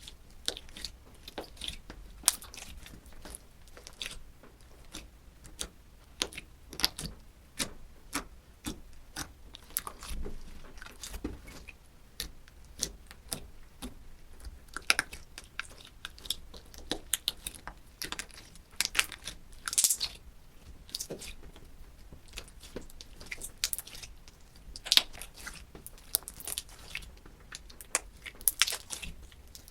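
Slime being pressed and worked by hand, giving a run of irregular sticky crackles and pops.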